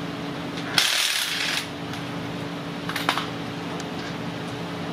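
Aluminium AC condenser and radiator being worked apart by hand: a short scraping rush of metal on metal about a second in, then a few light metallic clicks around three seconds in.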